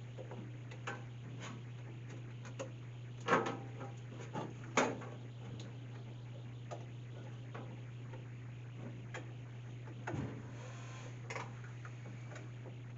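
Scattered small clicks and taps of a plastic product sensor being handled and fitted onto the metal door bracket of a vending machine's delivery bin, the loudest a few seconds in, over a steady low hum.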